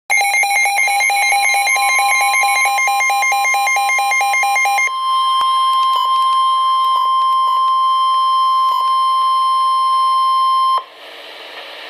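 Weather radio alert: about five seconds of fast, evenly repeating electronic beeps, then NOAA Weather Radio's steady 1050 Hz warning alarm tone, which cuts off suddenly about 11 seconds in, leaving a faint radio hiss.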